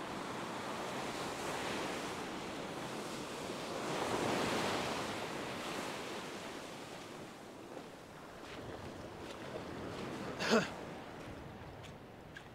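Ocean surf washing onto a beach: a steady rush of breaking waves that swells about four seconds in and eases off afterwards. A brief sharp sound stands out about ten seconds in.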